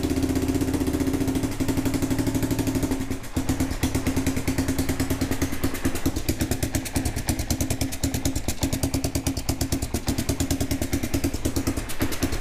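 1992 Kawasaki KLR 650's single-cylinder four-stroke engine running just after a first start on choke. It runs fast and even at first, then about three seconds in drops to a slower idle with distinct regular exhaust pulses. It sounds terrible because of an exhaust leak through a poorly patched hole in the exhaust.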